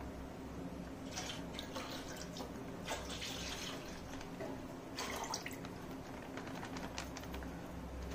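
Milk being poured from cut plastic milk packets into a pot, in several short pours with small clicks between them.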